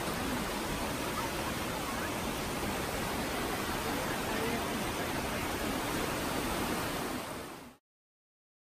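Steady rushing of a fast mountain stream tumbling over rocks, which cuts off abruptly to silence near the end.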